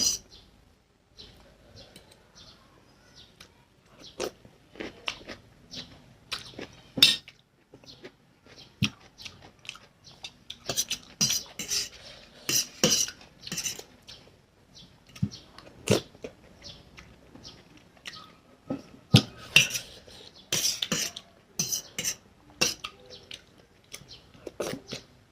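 Close-miked eating of Maggi instant noodles with fried egg: a utensil clinks and scrapes on the plate at irregular moments, between bursts of chewing.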